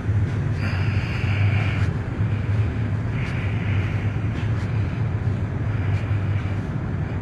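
Steady low hum of ship's machinery in the cargo tunnel of a self-unloading lake freighter, with a noisy rumble beneath. Two short stretches of hiss rise over it, about a second in and again about three seconds in.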